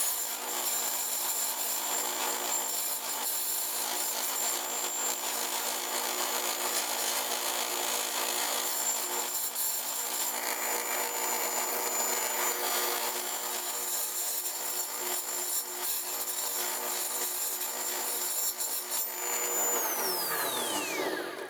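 Power saw cutting a circle out of a wooden board as the board is turned around a pivot screw, a steady motor whine under the rasp of the blade in the wood. About two seconds before the end the saw is switched off and its whine falls in pitch as the motor winds down.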